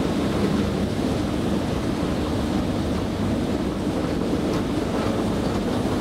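Steady low rumble of a metro-station escalator running, heard while riding it upward.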